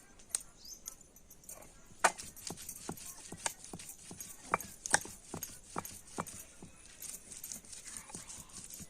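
Green chilli, coriander and mint masala being ground by hand with a stone, making irregular sharp knocks of stone on stone, about a dozen of them, the loudest about two and five seconds in.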